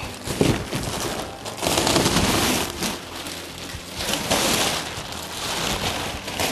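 Clear plastic sheeting crinkling and rustling as it is peeled back off a roll of Fast Trak knobbed radiant-floor panel and bunched up by hand, in surges that are loudest about two seconds in and again a little past four seconds.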